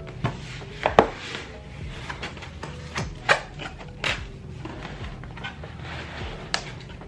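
Cardboard shipping box being handled as the white MacBook Pro retail box is slid out of it: scrapes, rustles and knocks of cardboard on cardboard and on the desk. The sharpest knocks come about a second in and again about three seconds in.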